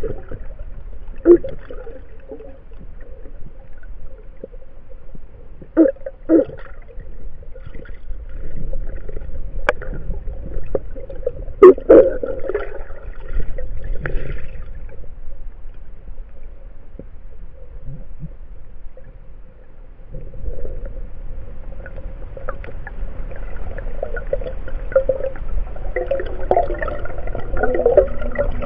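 Underwater sound picked up by a submerged camera: a muffled, uneven rumbling and gurgling, broken by a few sharp knocks, that grows busier and louder near the end.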